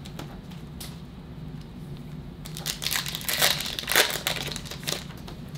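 Trading-card packaging crinkling and tearing as it is opened by hand, in a dense crackly run over the second half, over a low steady hum.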